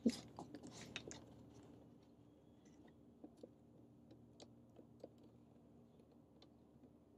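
Handling noise from a small camera on a flexible-leg tripod being bent and repositioned: a cluster of clicks and rustles in the first two seconds, then scattered faint clicks.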